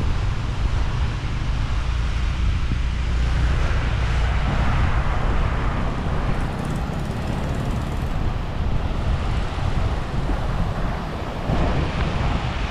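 Wind buffeting the microphone over small waves breaking on a sandy beach, a steady rush with a heavy low rumble.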